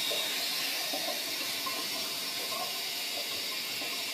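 Bidet's water spray running with a steady hiss.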